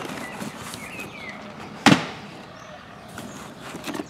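Plastic VHS cassette cases being handled and moved about in a plastic storage tub, with soft rubbing and one sharp clack of plastic knocking on plastic about two seconds in.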